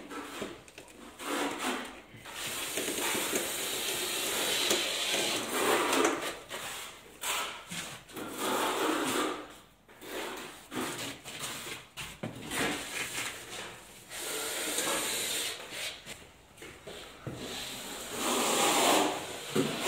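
Intermittent scraping and rubbing, in stretches of a second or two with a few short knocks between them, as plastic facade dowels are fitted into pre-drilled holes in mineral-wool ceiling insulation.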